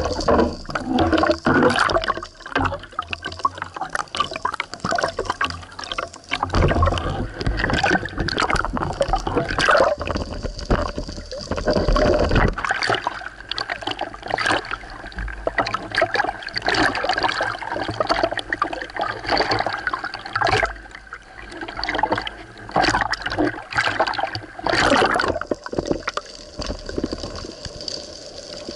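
Water sloshing and gurgling around a speargun-mounted underwater camera as it moves between underwater and the surface, with many scattered knocks and clicks.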